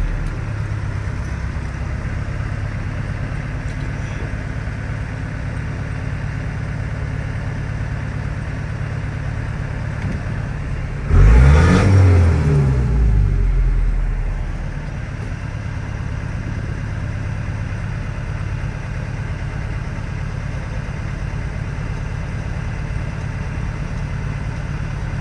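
Ford F-150 pickup's engine idling steadily, heard from inside the cab. About eleven seconds in it gives one quick rev that rises and falls, then settles back to idle within a few seconds.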